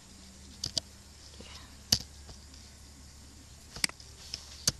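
A few isolated sharp clicks of computer keys being pressed one at a time, over a faint low hum.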